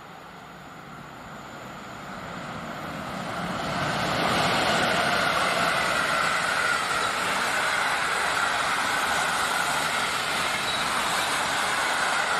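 Electric locomotive and its passenger coaches passing close at speed: wheels rolling on the rails, growing louder over the first few seconds as the train comes near, then a steady loud rumble with a faint ringing tone as the coaches run by.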